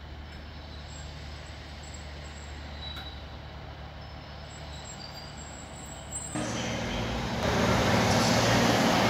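Class 156 diesel multiple unit's underfloor diesel engine running with a steady low hum as the train creeps into the platform. About six seconds in, a much louder, steadier rumble with a hiss takes over, from a diesel locomotive drawing in.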